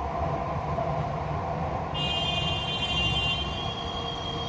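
Steady low rumble of a Jakarta MRT train running away along the elevated line, fading into the city's background hum. About two seconds in, a high metallic ringing tone starts suddenly and dies away over a couple of seconds.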